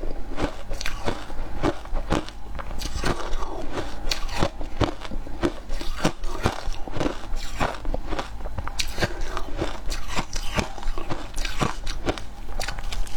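Close-up crunching and chewing of shaved ice coated in milk powder, with many sharp crunches a few per second.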